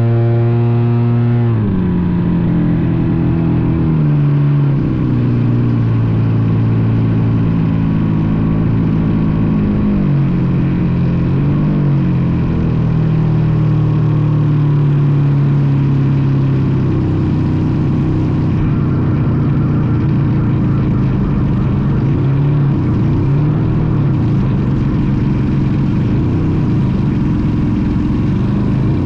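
Engine and propeller of an AJ Aircraft ARS 300 RC aerobatic airplane, heard from a camera mounted on the plane in flight, over rushing air. The pitch drops about a second and a half in, then rises and falls several times as the throttle changes.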